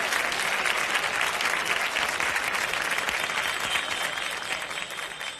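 Audience applauding at the end of a live song, fading out near the end.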